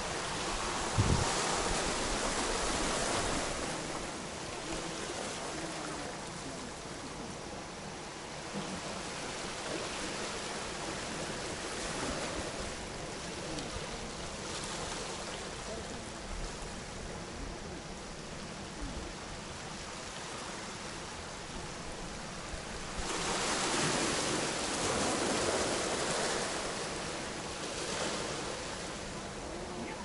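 Small waves washing onto a cobble beach: a steady surf wash that swells and eases, with a longer surge near the end. A short low thump about a second in.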